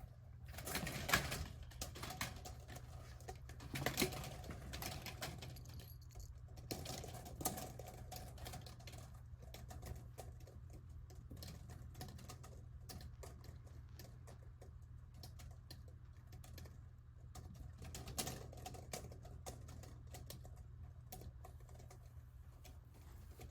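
Irregular light clicks and taps, busiest in a few short clusters, over a low steady hum.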